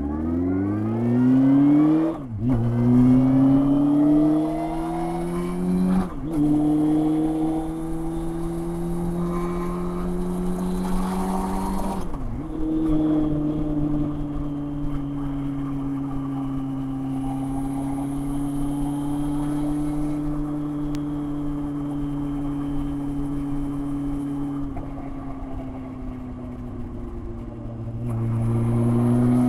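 Honda CBF600 inline-four running through a Scorpion titanium oval aftermarket exhaust, pulling through the gears: the engine note climbs and breaks at three upshifts, about two, six and twelve seconds in. It then holds a steady pitch while cruising, drops lower and quieter for a few seconds near the end, and climbs again as the throttle opens.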